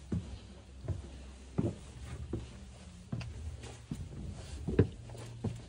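Footsteps on stone steps and brick floor in a narrow enclosed passage, about one step every three-quarters of a second, over a low steady hum.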